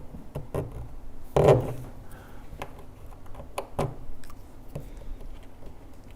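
Knocks and clicks as compost tumbler parts are handled and fitted together, in an irregular string; the loudest, a heavier knock with a short ring, comes about one and a half seconds in.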